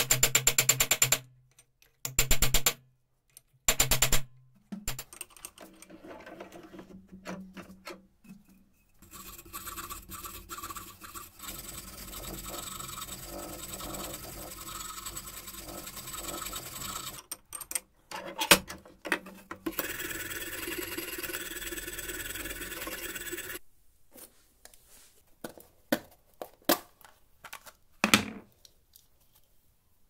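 A hand file rasping across a rusty steel hinge leaf clamped in a vise, three loud strokes in the first few seconds. From about 9 seconds in, a spinning wire cup brush scrubs rust off the metal in a steady run, with a short break around 18 seconds. A few light knocks and clicks near the end.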